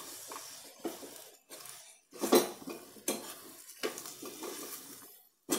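A metal spoon stirring a sticky mix of dates, cashews, raisins and cherries in a frying pan, scraping and clinking against the pan in irregular strokes, the loudest about two and a half seconds in.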